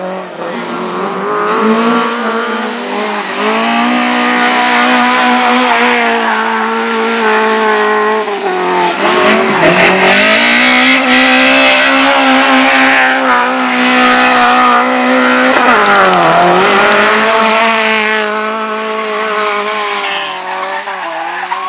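Speedway motorcycles, single-cylinder 500 cc methanol engines, racing at high revs. Their pitch drops and climbs back twice, about nine and sixteen seconds in, as the riders ease off and open up again through the bends.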